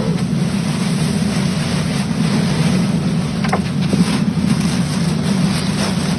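Tornado winds buffeting a pickup truck: a loud, steady rush of wind with a deep rumble.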